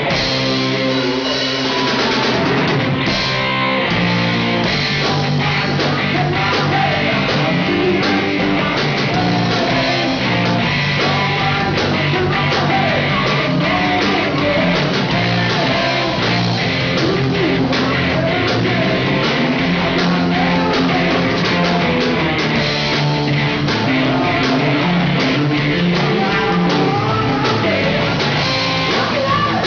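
Live rock band playing electric guitars, bass guitar and drums, with a voice singing over them.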